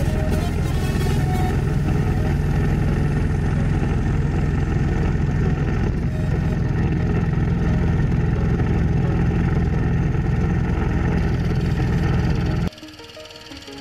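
Wheel Horse C-160 garden tractor's single-cylinder Kohler engine running steadily while pulling a plow through soil, loud and close up. Near the end it suddenly drops to a much quieter, more distant engine sound.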